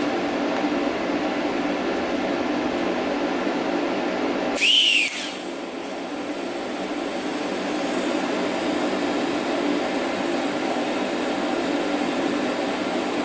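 Steady machine hum, with a sudden short burst about four and a half seconds in that carries a brief whistle rising and falling in pitch. After the burst the hum drops briefly, then climbs back.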